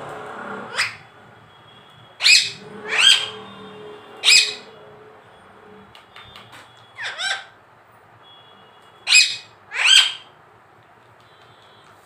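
A rose-ringed (Indian ringneck) parakeet squawking about eight times in short, harsh, loud calls, in irregular pairs and singles.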